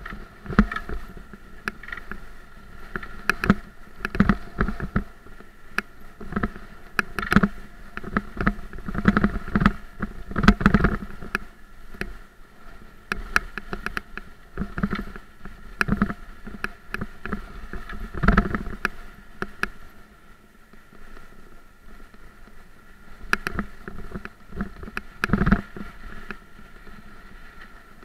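Haibike Trekking 4.0 electric bike riding over a rough sandy dirt track: irregular knocks and rattles as the bike jolts over bumps, over a steady high whine.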